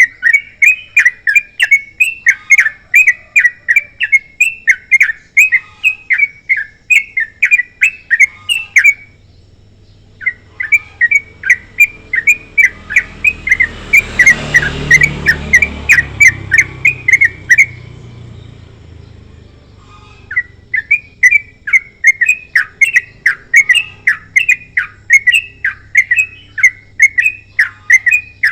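Yellow-vented bulbul (trucukan) calling a long, rapid run of chirps, about three a second, in three long runs broken by short pauses. A low rushing noise swells and fades under the middle run.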